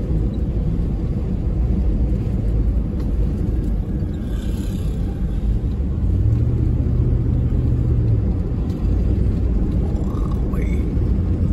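Steady low rumble of a moving car heard from inside the cabin, tyres on the road and engine, with a deeper steady hum swelling for about two seconds past the middle.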